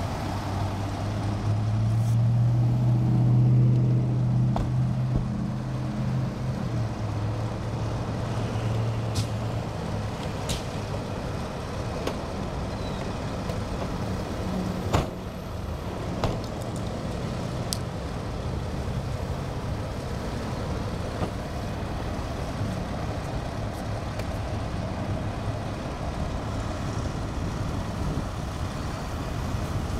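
Low, steady hum of a fire engine's diesel idling with road traffic behind it; the engine sound swells louder over the first few seconds, then settles into a steady drone. Two sharp clicks sound about halfway through.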